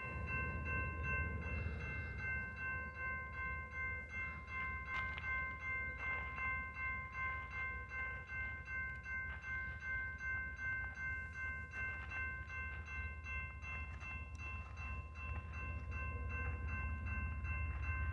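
Railroad grade-crossing bell ringing steadily at about two strokes a second, activated by an approaching train, over a steady low rumble.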